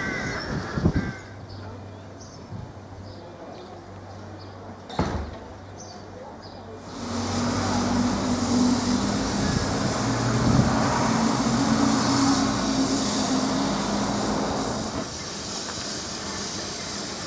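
Narrow-gauge steam tank locomotive of the Isle of Man Railway moving off with steam escaping from its cylinder drain cocks: a loud, steady hiss of steam over a steady low tone, starting about seven seconds in. Before that, a quieter stretch with a faint low hum and a single knock.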